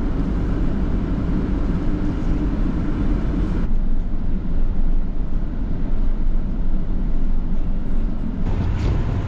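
A heavy vehicle's engine running steadily, a loud low drone with no speech. The character of the sound changes abruptly about a third of the way in and again near the end.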